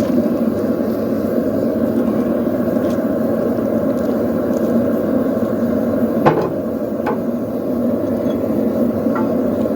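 A forge running with a steady low noise, with two sharp hammer strikes on steel about six and seven seconds in and a lighter strike near the end.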